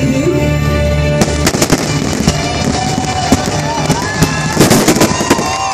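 Fireworks finale: a rapid run of loud aerial shell bursts over the show's soundtrack music. The music gives way about a second in.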